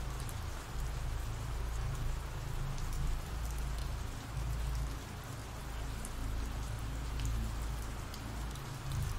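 Steady rain ambience: rain falling on a surface as an even hiss, with a deep low rumble underneath.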